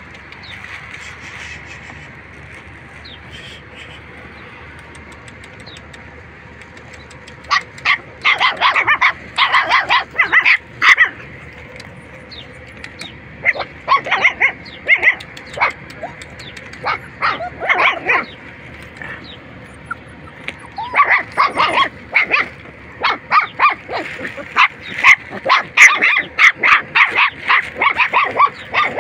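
Young puppies barking and yelping in rapid runs of short, high-pitched calls. The calls start about seven seconds in and come in three bouts, the last one the longest and loudest.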